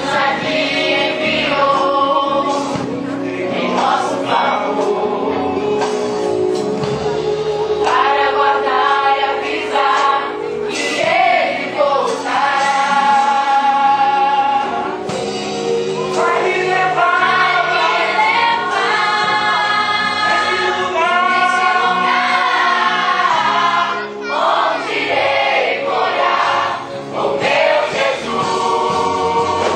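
A choir of voices singing a Christian worship song over instrumental backing, with long held notes.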